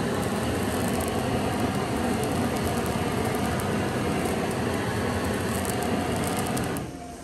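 A vehicle on the move: a steady rush of road and engine noise that drops away shortly before the end.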